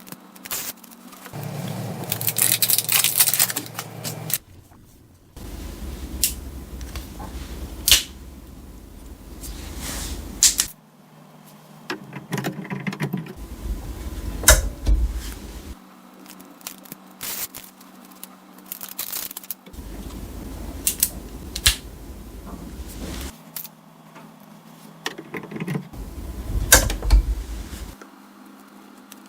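HP ink cartridges being handled: packaging rustling, and plastic clicks and snaps as cartridges are unwrapped, their orange tabs twisted off and pressed down into the printer's carriage. Scattered sharp clicks, with a longer stretch of rustling a couple of seconds in.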